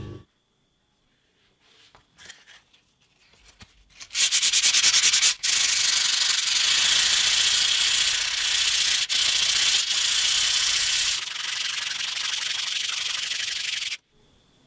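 Wet sandpaper scrubbed by hand along a rusty steel knife blade to take off the rust. It starts about four seconds in with quick back-and-forth strokes, then becomes steady scratching that stops abruptly near the end.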